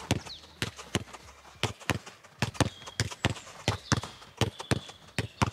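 A football struck in quick one-touch passes with Nike Mercurial Vapor 15 Academy boots and bouncing back off a wall: a rapid, irregular run of sharp thuds, about four a second.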